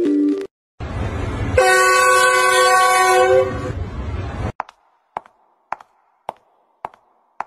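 A loud, steady horn-like blast over heavy rumbling noise, held for about two seconds, likely a train-horn sound effect. After it come a series of sharp, evenly spaced ticks, about two a second.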